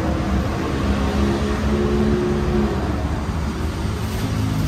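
Steady low rumble of street traffic, with one vehicle's engine note standing out over it for a second or two in the middle.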